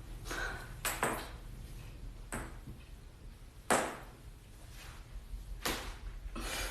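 Sharp cracks and knocks from a chiropractic adjustment: about six short clicks, irregularly spaced, with the loudest a little past halfway.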